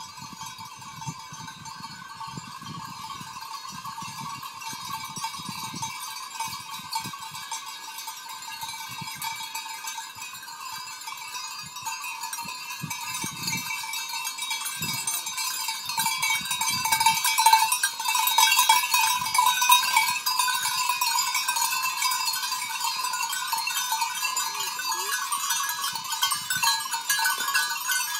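Many goat bells jangling and clanging at once on a herd of walking goats. It grows louder as the herd comes close and is loudest past the middle.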